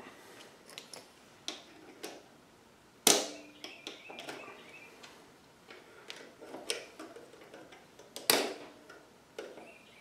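Small metal clicks and scrapes of needle-nose pliers working a retaining pin into a motorcycle's rear brake caliper, with two louder sharp metallic hits about three seconds in and again near the end.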